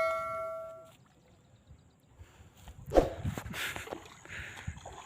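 A struck metal object ringing out and dying away over the first second, then a short quiet. About three seconds in comes a sharp knock, followed by rustling and light splashing.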